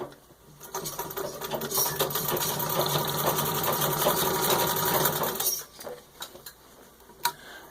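Treadle-driven 1922 Singer 66-1 sewing machine stitching through six layers of denim at full speed in a stitch test. It picks up speed over the first second or so, runs fast and evenly, and stops about five and a half seconds in, followed by a few light clicks.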